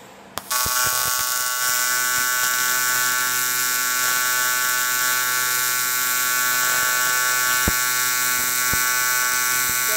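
A TIG welding arc on aluminum strikes with a click about half a second in and then holds a steady, even buzz, with a few faint ticks.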